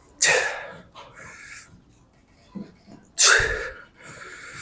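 A man's forceful breathing close to the microphone during cable lateral raise reps: two loud, sharp exhales about three seconds apart, each followed by a quieter breath.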